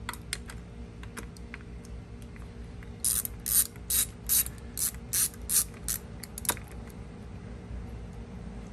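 Hand socket ratchet clicking as it backs off the last nut holding the starter on an outboard motor. A few light tool clicks come first; then, from about three seconds in, there are three seconds of quick ratcheting back-strokes, about three a second, ending in one last click.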